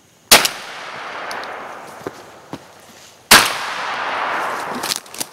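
Two close gunshots about three seconds apart, each followed by an echo that dies away over a second or so.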